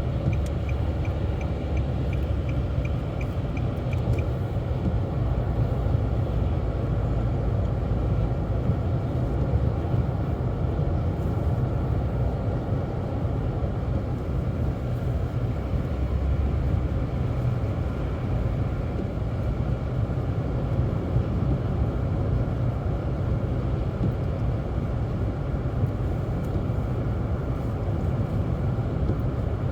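Car driving at highway speed, with steady engine and tyre rumble heard from inside the cabin. A faint rapid ticking sounds over the first few seconds.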